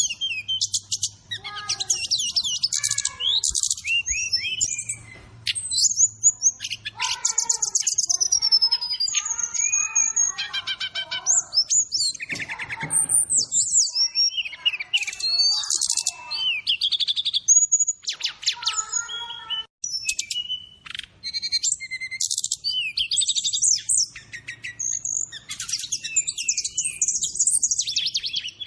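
Sikatan rimba dada coklat (brown-chested jungle flycatcher) birdsong: a continuous, varied stream of quick chirps, whistled glides and rapid trills, with fill-in calls woven in.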